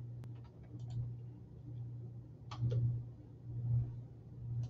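A few light clicks at the computer as the PowerPoint slideshow is closed: one about a quarter second in, a pair around two and a half seconds in, and one near the end. A steady low hum runs underneath.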